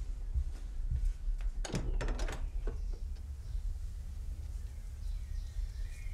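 Wooden front door being unlocked and opened: a quick cluster of latch and lock clicks with a short rattle about two seconds in, over a steady low rumble.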